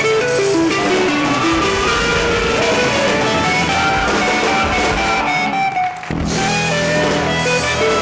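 Live blues band playing: electric guitars and drum kit with a horn section of trombone, trumpet and saxophone. The low end drops out briefly about six seconds in, then the full band comes back in.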